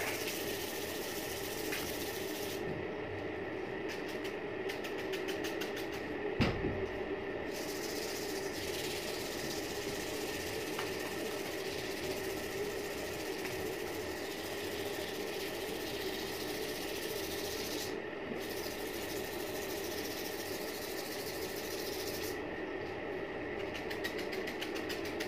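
A steady machine hum, with one dull knock about six seconds in.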